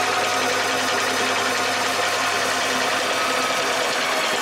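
Electric anchor windlass running with a steady hum as it hauls the anchor chain aboard over its gypsy. It cuts off suddenly near the end.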